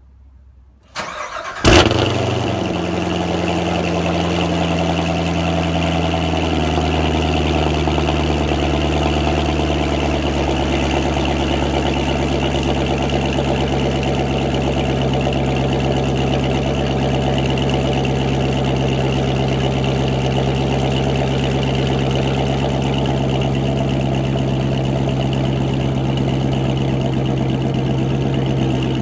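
2015 Corvette Z06's supercharged 6.2-litre LT4 V8 starting through a Corsa Extreme exhaust with X-pipe: a brief crank, a loud flare just under two seconds in, then a steady idle that steps down in pitch twice as the start-up idle settles.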